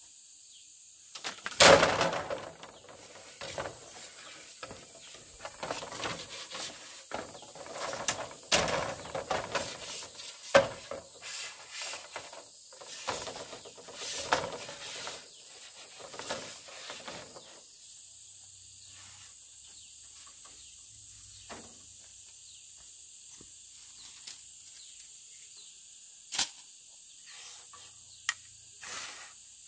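A steady high-pitched insect drone over irregular knocks and rustles of handling or work, loudest about two seconds in, thinning out a little past the halfway point; after that come only a couple of single sharp knocks.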